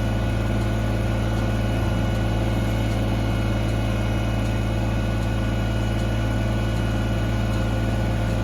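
Kubota BX25D compact tractor's three-cylinder diesel engine running steadily at an even speed.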